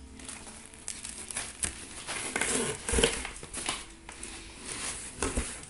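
Cardboard flaps and plastic wrapping of a monitor box rustling and crinkling as the box is opened by hand, in irregular scrapes and crackles, loudest about three seconds in.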